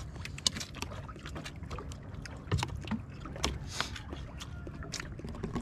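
Sea water sloshing against a small fishing boat, under a steady low rumble, with scattered sharp clicks and knocks throughout.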